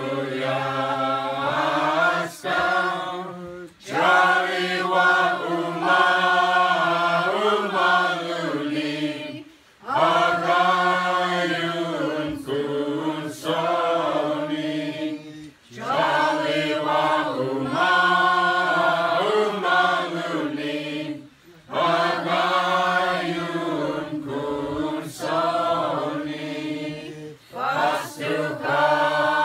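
A group of carolers singing an Orthodox Christmas starring (Slaaviq) carol a cappella, in sung phrases of about six seconds with a short breath between each.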